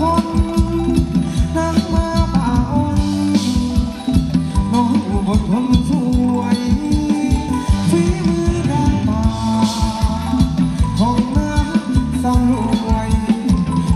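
Thai ramwong dance music from a live band, with a steady fast beat of percussion under melody lines that slide in pitch.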